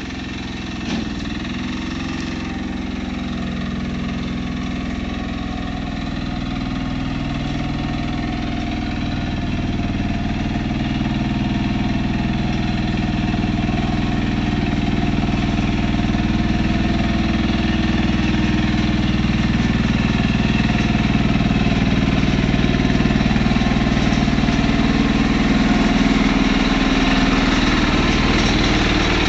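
Yanmar C10R tracked mini dumper's engine running steadily as the machine drives along, growing louder as it comes closer.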